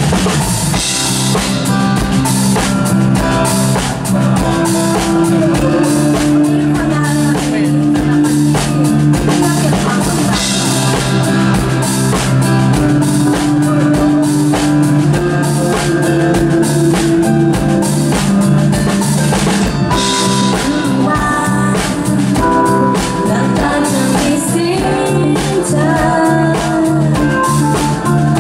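Live band playing an instrumental passage: a steady drum-kit beat with electric bass and keyboard.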